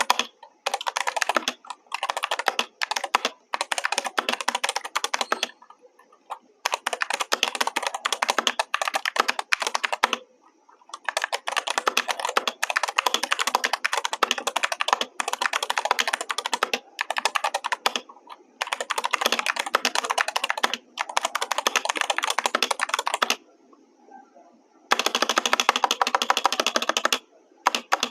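Typing on a GK61 60% mechanical keyboard: fast runs of key clicks in bursts of a few seconds, broken by short pauses of about a second, heard through a wireless lavalier microphone.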